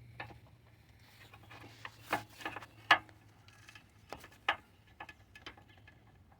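Scattered small clicks and taps, the sharpest about two and three seconds in and again past four seconds. They come from hands working a car's turn-signal bulb socket while the old halogen bulb is pulled and the LED bulb is fitted.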